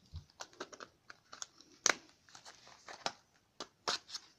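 Cardboard and plastic packaging being handled: a run of short crinkles and clicks, the sharpest about two seconds in and again near four seconds.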